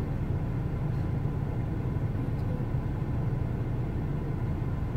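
Steady low engine rumble from a vehicle at idle or a crawl, heard from inside a car's cabin.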